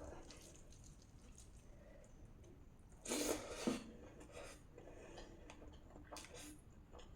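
Close-miked eating sounds: soft chewing and small mouth clicks of someone eating rajma and rice, with one louder mouth sound lasting under a second about three seconds in.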